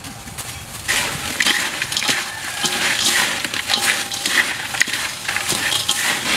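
Crisp fried grasshoppers being tossed and mixed by a gloved hand in a stainless steel bowl: a dry, irregular crackling and rustling with many sharp clicks, starting about a second in.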